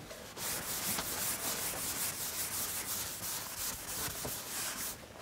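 Chalkboard eraser wiped briskly back and forth across a blackboard, rubbing off chalk writing in quick repeated strokes. It starts about half a second in and stops just before the end.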